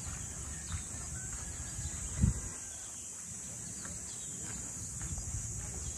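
Steady high-pitched insect drone, with a single low thump about two seconds in.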